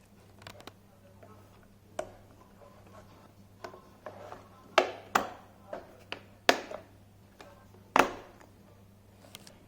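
Plastic parts of a Kärcher FC5 floor cleaner being handled and fitted together: a string of about ten sharp clicks and knocks at irregular spacing, the loudest in the middle.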